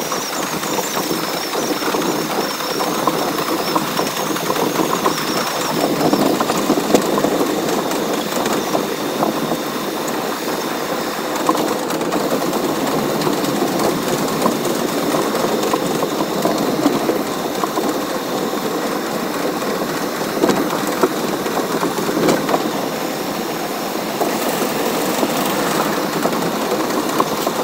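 R62A subway train running at speed on elevated track: a steady rumble with rapid clatter of the wheels over the rail joints, and a faint wavering high squeal in the first few seconds.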